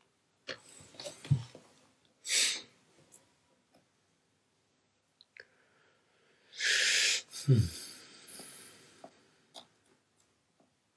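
A few short breathy rushes of air, the loudest about seven seconds in, among light clicks of tweezers and fingers handling an opened iPhone 5C.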